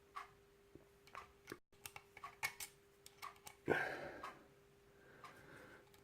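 Hook pick and tension wrench working inside a small lock: scattered light metallic clicks and ticks, with one louder scrape a little past halfway, over a faint steady hum.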